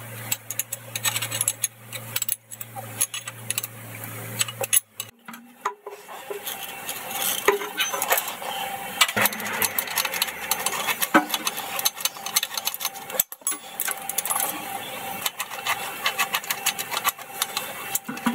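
Hand tools on the steel nuts and bolts of a Boxford lathe's motor drive unit: a spanner and a socket ratchet clinking and clicking in quick runs as the mounting bolts are undone.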